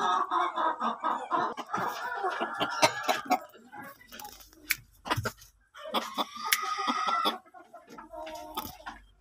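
A flock of chickens clucking and calling, with a short lull in the middle.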